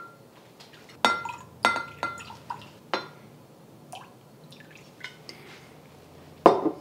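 Dark soy sauce pouring from a bottle into a glass measuring cup: a handful of sharp glass clinks with a short ring and a few faint drips, then a louder knock near the end.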